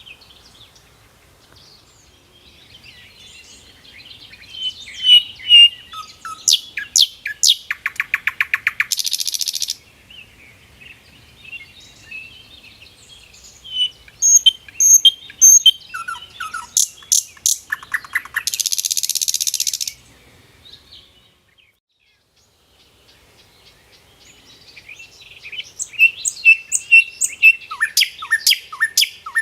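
Small birds chirping and trilling in three similar bouts with quiet gaps between. Each bout has quick high chirps and a rapid rattling trill, ending in about a second of harsh hissing rasp.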